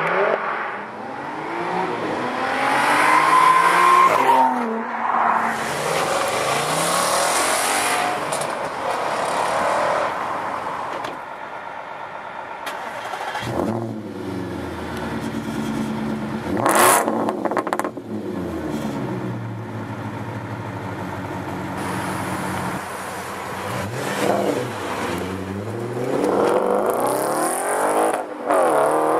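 High-performance car engines revving and accelerating, several in turn, their pitch climbing and dropping again and again, with a steadier low engine drone for a stretch in the middle. A short, sharp loud burst comes about seventeen seconds in.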